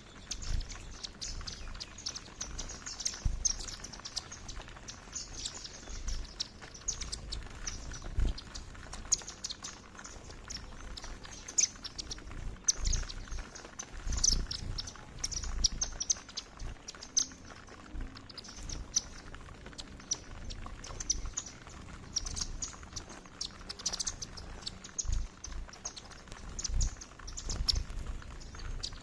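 A flock of Indian silverbills (white-throated munias) calling with frequent short, high chirps, together with occasional low thumps.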